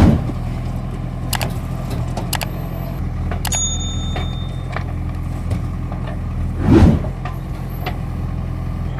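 Heavy diesel engine of construction machinery running steadily, with scattered metallic clanks and knocks and a louder thump about seven seconds in.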